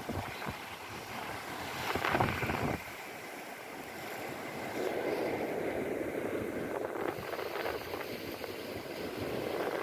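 Sea surf washing steadily against a rocky shore, with a brief louder surge about two seconds in and the wash swelling a little past halfway.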